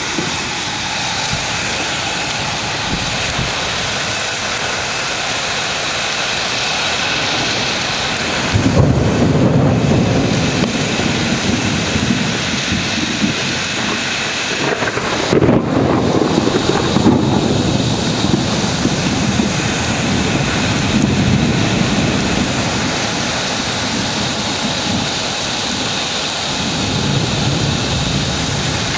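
Thunderstorm: a steady rushing noise of wind and rain, with rolling thunder rumbling up about a third of the way in and again around the middle, and fainter rumbles later.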